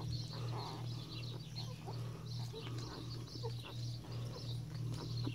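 Labradoodle puppies nursing on their mother, giving small squeaks and grunts as they suckle, over a low steady hum that pulses about three times a second.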